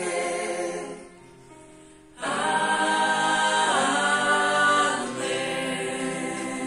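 A choir singing sacred music, with held notes. It dies down to a quiet lull about a second in and comes back strongly a little after two seconds.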